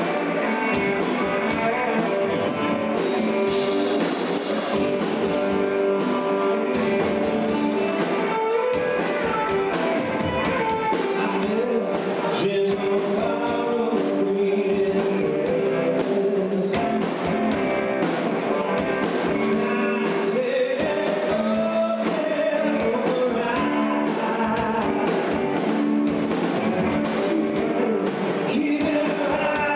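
A band playing a song: a singer over guitars.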